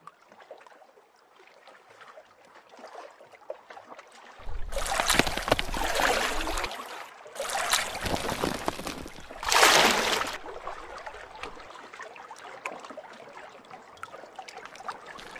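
Water sloshing and splashing: a faint trickle at first, then three loud surges of splashing from about four and a half to ten seconds in, easing to a quieter wash with small clicks.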